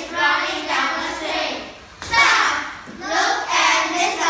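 A group of young children singing and chanting an English children's song in unison, in short phrases with brief pauses between.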